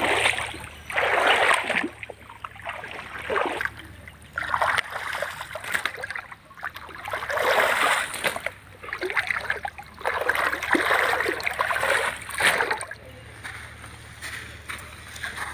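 Pond water splashing and sloshing in irregular bursts, every second or two, as people wade through it and work a gill net in the water.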